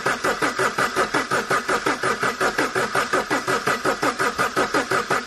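Starter motor cranking a cold Vauxhall Ecotec diesel engine in an even rhythm of about five compression pulses a second, without the engine catching. A cold diesel that cranks but won't start is a typical sign of defective glow plugs.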